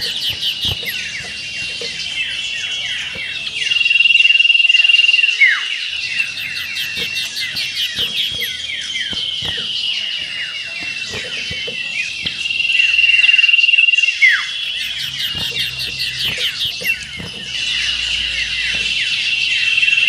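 Common iora (cipoh) song in the chattering, trilling 'meriwit ngetir' style used for bird-contest training: fast twittering trills and quick falling notes, with a long high whistle about every eight seconds.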